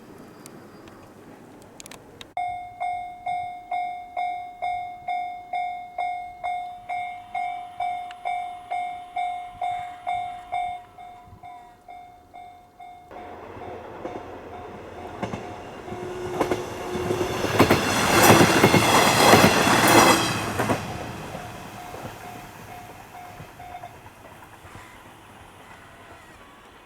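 Japanese railway level-crossing warning bell starting about two seconds in, ringing about twice a second, then carrying on more quietly as a diesel railcar approaches and passes over the crossing, loudest a little past the middle. The bell stops a few seconds before the end.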